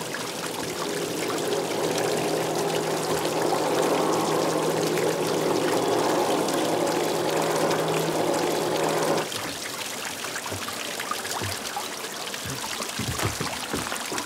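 Water from a garden hose pouring steadily into a concrete pond. About nine seconds in the pouring cuts off suddenly, leaving a fainter water sound.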